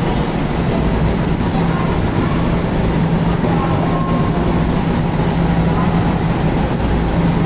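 Steady mechanical hum with a constant low drone over a rumbling noise, with no change or impact.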